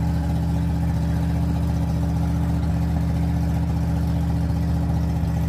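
An engine idling steadily, its low drone holding the same speed throughout.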